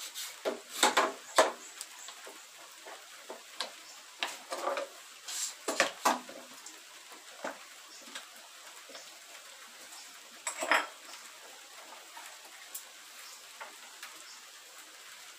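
Scattered clicks and knocks from a quick-release bar clamp being squeezed tight and wooden boards being handled on a wooden workbench.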